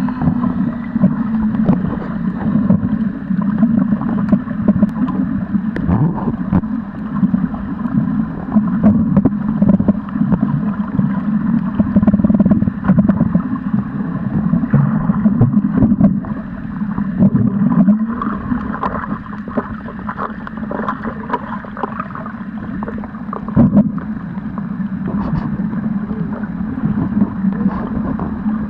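Muffled underwater water noise picked up through a camera's waterproof housing: continuous low rushing with irregular swishes and knocks as the camera moves through the water.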